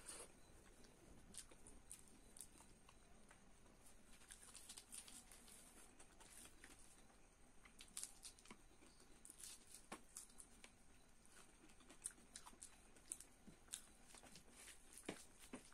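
Faint close-up eating sounds: fingers squishing and mixing rice and fish on a plate and moist chewing and lip smacks, heard as many small irregular clicks and ticks.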